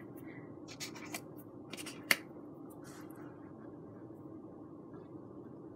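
Foamboard pieces being handled and held together: a few small clicks and scratchy rubs, one sharper click about two seconds in, over a faint steady low hum.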